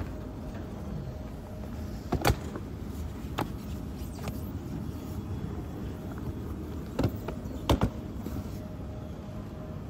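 Hard-shell suitcases being handled, giving a handful of sharp knocks and clicks, the loudest a little after two seconds in and near the end, over a steady background hum.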